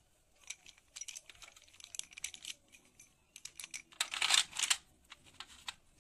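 Sticks of white school chalk clicking and clattering against one another and a stainless steel tray as they are gathered by hand. A run of quick light taps, with the loudest, densest cluster about four seconds in.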